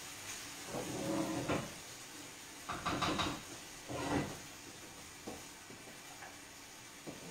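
Kitchen clatter at a gas stove: pots, a pot lid and a metal skimmer knocked and set down in a few separate clanks, the loudest about three and four seconds in. A faint steady hiss from the pans on the burners runs underneath.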